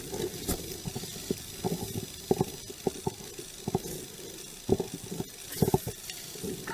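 Muffled, irregular knocks and rubbing sounds over a faint steady hiss, inside a patrol car near the end of a drive.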